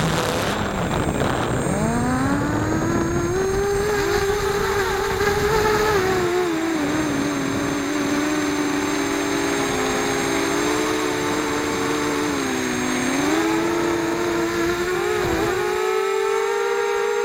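FPV quadcopter's electric motors and propellers whining, the pitch falling, climbing and levelling off again as the throttle changes, over rushing wind noise that drops away near the end.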